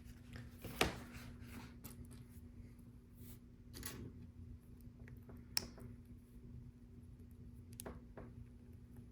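Faint, scattered clicks of small plastic LEGO pieces being handled and pressed onto a LEGO Art mosaic, over a steady low hum.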